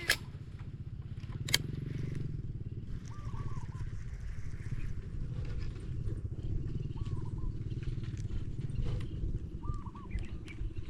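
A motor running with a steady low drone, with a few short chirps every few seconds and a couple of sharp clicks in the first two seconds.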